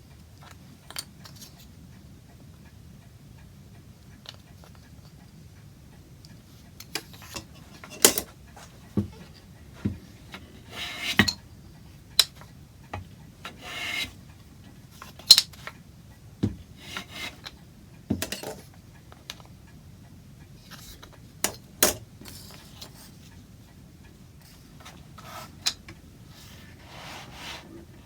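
Irregular sharp clicks, knocks and short scrapes of tools and small wooden pieces being handled and set down on a workbench. Longer scraping strokes start near the end.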